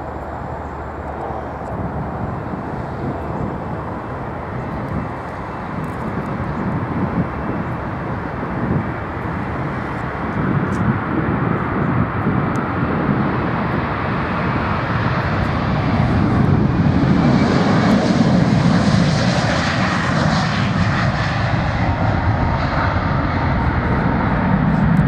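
Jet airliner engines at take-off power, a rumble with a rushing hiss that grows steadily louder and is loudest about two-thirds of the way through as the plane passes.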